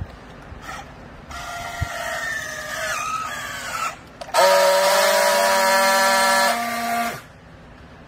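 Battery-powered handheld strapping tool on a plastic bale strap. Its motor whines for about two and a half seconds with the pitch sagging as it pulls the strap tight. After a brief pause it runs louder on a steady tone for nearly three seconds as it friction-welds the strap seal, then stops.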